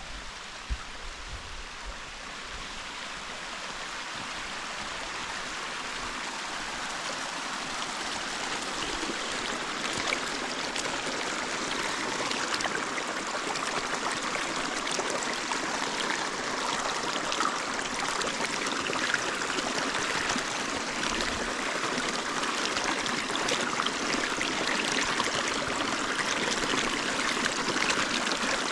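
Steady rushing noise of running water, growing gradually louder.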